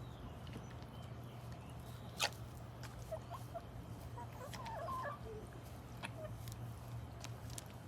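Hens pecking at rice, with scattered sharp taps, one much louder about two seconds in. A run of short, soft clucks comes in the middle.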